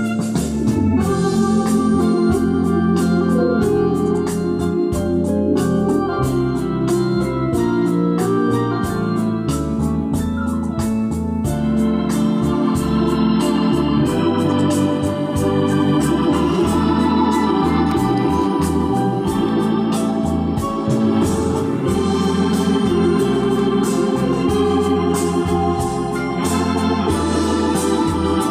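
Music playing through a JVC AX-11 stereo integrated amplifier and its loudspeakers: sustained chords over a stepping bass line, at a steady, fairly loud level.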